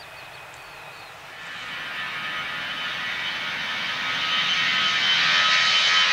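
Airbus A321 jet engines, faint at first, then growing steadily louder from about a second in: a rising roar with a steady high whine.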